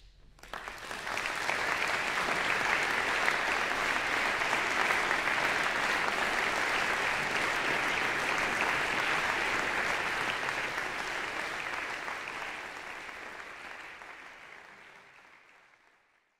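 Audience applauding. The clapping starts about half a second in, quickly builds, holds steady, then fades out near the end.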